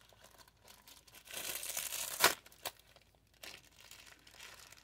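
Plastic packaging crinkling as small items are handled. The rustle is loudest between about one and two seconds in and ends in a sharp snap, followed by fainter rustles.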